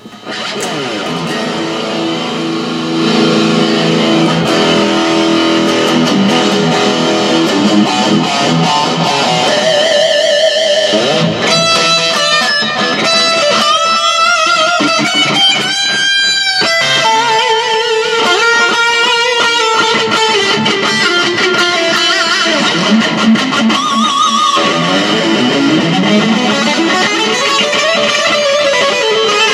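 Electric guitar played through the Marshall MG15 DFX amp's built-in distortion channel, with no pedal: metal riffs and lead licks with held notes shaken with vibrato. The playing gets louder about three seconds in.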